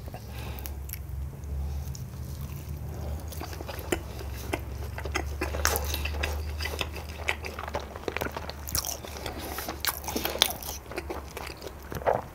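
A person eating close to the microphone, biting and chewing with many short irregular wet clicks, over a low steady hum.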